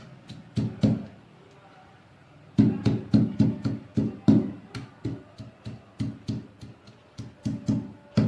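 Unpeeled garlic cloves being pounded by hand, a steady run of dull thuds about three a second. The thuds pause for about a second and a half near the start, then carry on.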